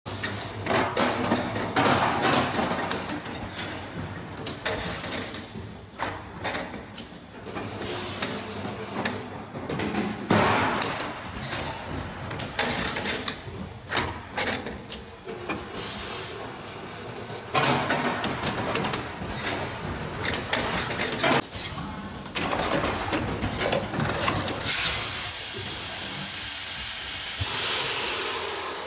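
A full-automatic servo bottle blow moulding machine for 5 L and 10 L bottles running: irregular clattering and knocking of plastic preforms and mechanism along the feeder and loader, with bursts of compressed-air hiss and a long air hiss near the end.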